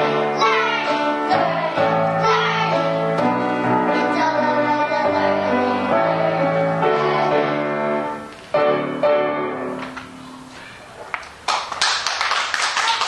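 Young children singing a song with piano accompaniment, ending on a final chord about eight and a half seconds in that dies away; applause starts near the end.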